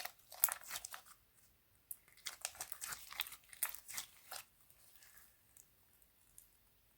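Clay slime being squeezed and worked by hand, giving clusters of small crackling clicks. The crackling dies down to a few faint clicks in the last couple of seconds.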